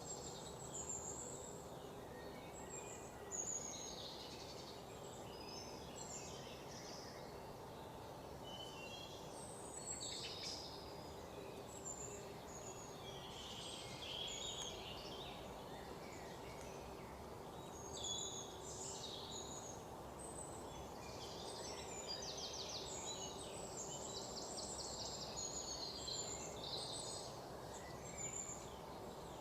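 Several birds chirping and calling in a dawn chorus, short varied notes overlapping one another, with a rapid trill near the end, over a steady background hiss.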